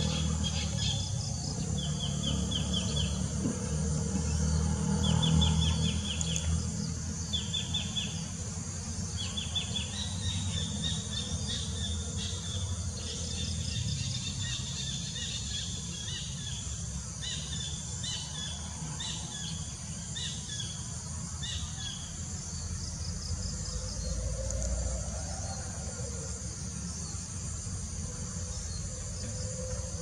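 Collared kingfisher calling: short trains of rapid high notes repeated every second or two, which stop about two-thirds of the way through. A steady high insect buzz and a low rumble run underneath.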